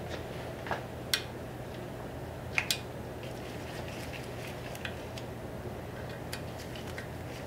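A few sparse light clicks and taps as a small threadlocked bolt is handled and threaded by hand into the motorcycle's fork leg protector, over a low steady hum.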